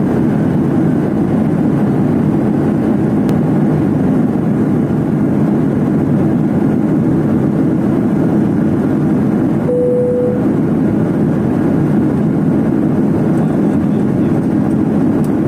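Steady cabin noise of a jet airliner in flight: the low, even rush of the engines and airflow heard from a window seat over the wing. A short beep sounds once, about ten seconds in.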